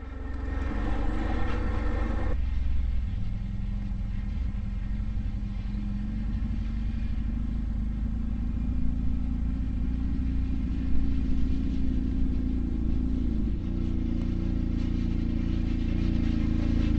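Can-Am ATV engine running steadily at low speed over grass. About two seconds in the sound changes abruptly, and it grows a little louder toward the end as the machine draws nearer.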